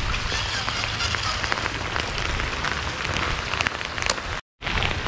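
Steady, calm rain falling, an even hiss with scattered raindrop ticks. The sound drops out completely for a split second about four and a half seconds in.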